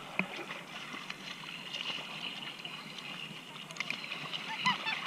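Ocean water sloshing and splashing steadily, with a few small splashes and a brief voice near the end.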